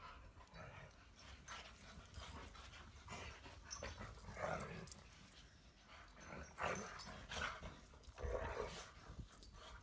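Two lurchers play-fighting, giving several short bursts of dog noises, with more of them in the second half.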